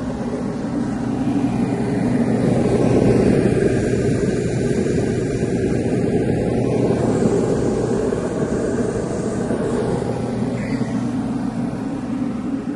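Heat pump running with its fan blowing and a steady low hum underneath, swelling a little over the first few seconds and then holding steady. The owner takes the hum to be part of the unit's defrost cycle.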